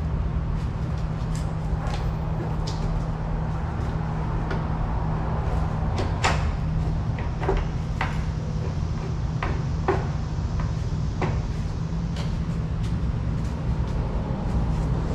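Scattered knocks, clicks and clunks of a cooling fan assembly being worked up and rotated into place under a car, against a steady low hum. The sharpest knock comes about six seconds in.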